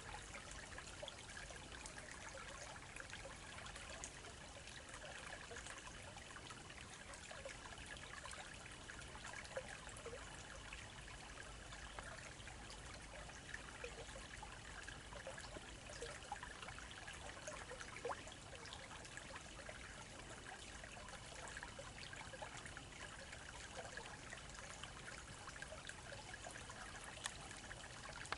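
Steady trickle of a small, slow-flowing stream, with scattered faint ticks over the running water.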